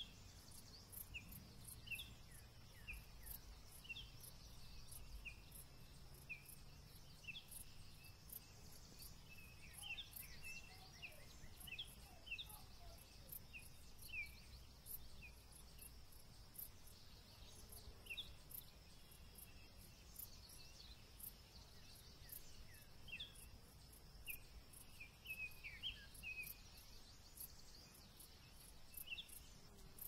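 Faint summer-field insect and bird sounds: crickets chirping in an even, steady pulse over a continuous high trill, with birds giving short, falling calls throughout.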